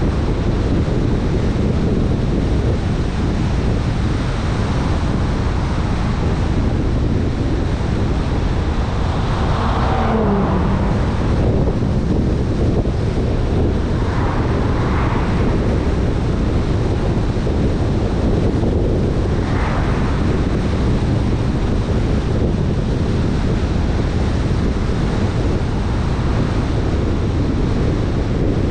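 Steady wind noise buffeting the microphone over the low rumble of a vehicle on the move, with brief swells about ten, fifteen and twenty seconds in, the first falling in pitch.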